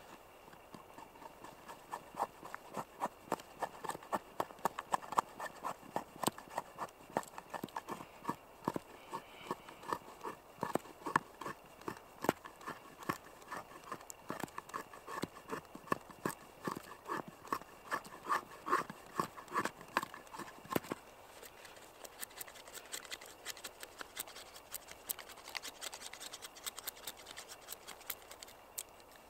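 Fixed-blade knife carving shavings off a split wooden stick: a steady run of short, crisp cutting strokes about two a second, turning softer and finer for the last several seconds.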